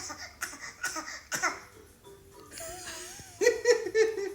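Laughter in short, quick, repeated bursts for about a second and a half, then it stops. Music comes in after a pause: a wavering tone, then a loud held note near the end.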